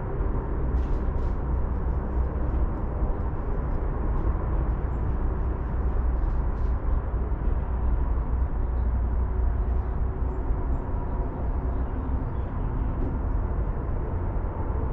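Air compressor running steadily with a low rumble and a faint steady whine, with a few light clicks about a second in.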